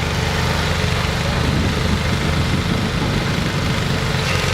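Engine of a Survival Research Labs robot machine running steadily, a low, rapidly pulsing rumble under a wash of broad noise.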